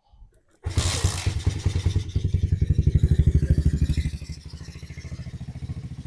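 Honda CRF125 dirt bike's single-cylinder four-stroke engine starting up on fresh oil after an oil change: it catches suddenly less than a second in and runs fast and loud for about three seconds. About four seconds in it settles to a lower, steady idle.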